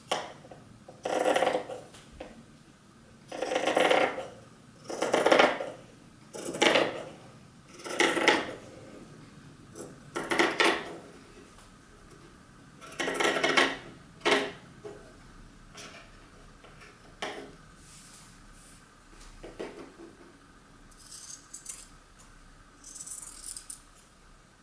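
Large fabric scissors cutting through T-shirt jersey, one stroke after another, each cut a short rasping snip. About eight strong cuts come roughly every one to two seconds, then the cuts get softer and shorter in the second half.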